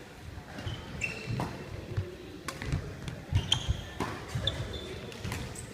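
Badminton rally on an indoor court: shoes squeak and feet thud on the court floor, with several sharp racket strikes on the shuttlecock about midway through.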